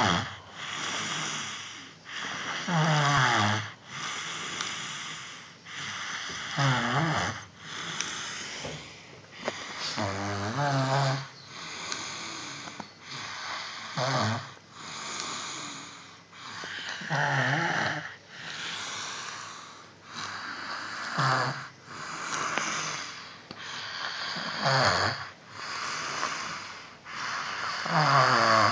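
A sleeper snoring in a steady rhythm, one breath about every three and a half seconds. Each breath is a low, buzzing snore with a breathy hiss.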